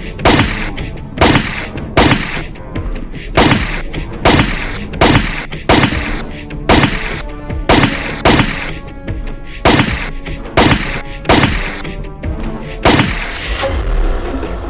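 Pistol gunshots fired one at a time at irregular intervals, about fifteen in all, over background music. The shooting stops near the end, leaving only the music.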